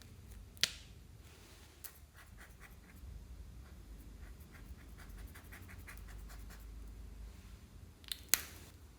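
Clear slime being handled and mixed by hand: a run of faint crackling ticks and small pops, with two sharp clicks, one about half a second in and a louder one near the end.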